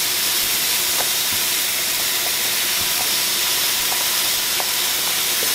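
Drained shaggy mane mushroom pieces going into hot butter and onions in a pot: a steady sizzle and hiss that starts as they go in, with a few faint ticks.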